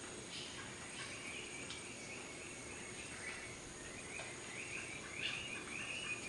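Tropical jungle ambience: birds chirping over a steady background hiss, with a run of short, quick chirps that grows louder near the end.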